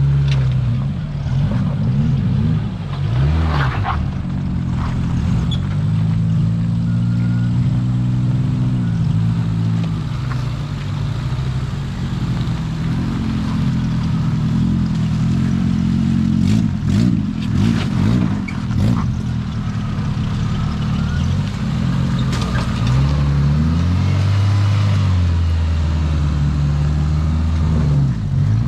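Suzuki Samurai rock crawler's engine under load at crawling speed, revving up and down in short pulls as the rig works over concrete slabs and rocks. A few sharp knocks come a little past the middle.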